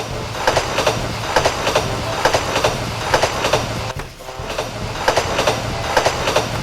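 Plarail battery toy train running on plastic track: a steady low motor hum with sharp clicks in pairs, the pairs repeating about once a second as the wheels run over the track joints.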